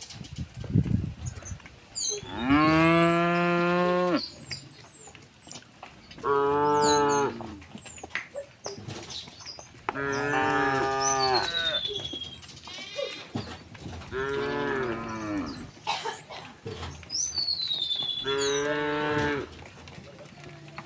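Cows mooing: five long moos, a few seconds apart, with small birds chirping between them.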